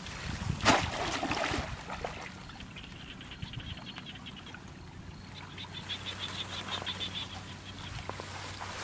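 Water splashing and sloshing as a conical bamboo fish trap is pushed down into shallow water by someone wading, with one sharp splash about a second in. After that a rapid, high chirping trill carries on in the background.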